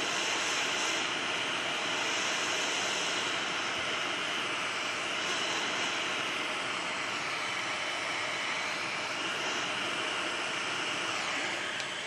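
Hot air rework station blowing a steady hiss of hot air from its nozzle onto an FPC connector at about half airflow, heating the solder to lift the plastic connector off the phone board.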